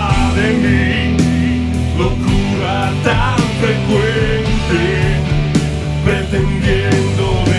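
Rock band playing: drums keeping a steady beat under bass and guitars, with a lead vocal line sung in Spanish over them.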